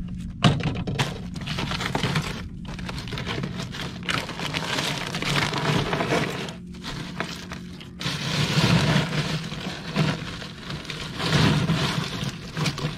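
Ice cubes crunching and rattling in a boat's iced fish box as a fish is pushed down into the ice by hand, with a sharp knock about half a second in. A steady low hum runs underneath.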